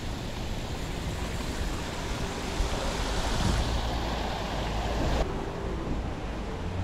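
Steady rushing wind buffeting the microphone, heaviest in the low rumble. The higher hiss cuts off abruptly about five seconds in.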